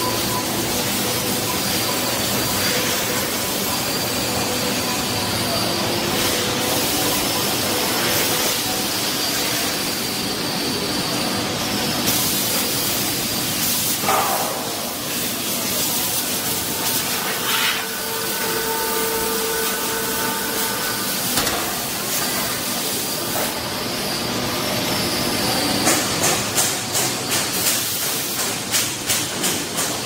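Steady rushing of air and machine hum from a chiller-dehumidifier blowing cold air through a duct into a chocolate coating pan. Near the end a fast, regular clatter of about three beats a second sets in.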